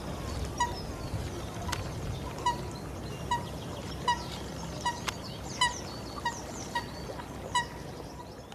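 A bird giving one short call over and over, about every three-quarters of a second, with other birds chirping faintly and two sharp ticks.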